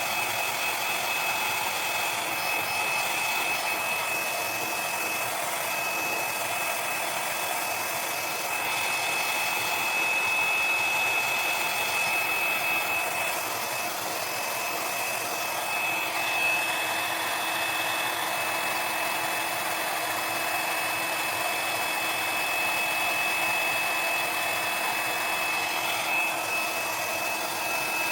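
Small handheld hair dryer running steadily: an even rush of blown air with a constant high-pitched whine from its motor.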